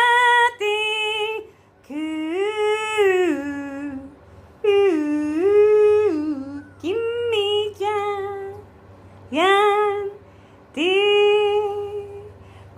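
A woman's voice singing a slow melody in long held and gliding notes, about six phrases with short breaths between.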